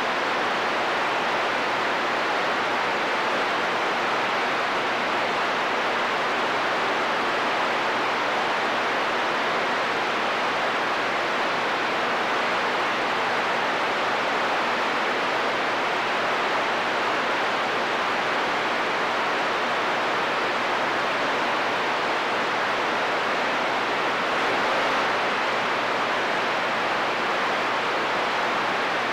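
CB radio static: a steady, even hiss from the receiver between transmissions on a skip channel.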